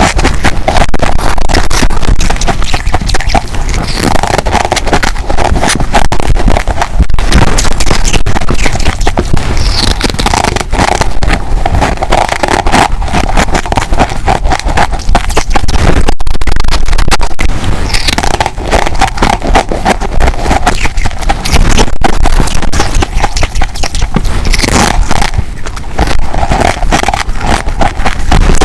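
Close, loud crunching of humidifier ice being bitten, a dense run of sharp cracks and crackles that keeps going with only brief lulls.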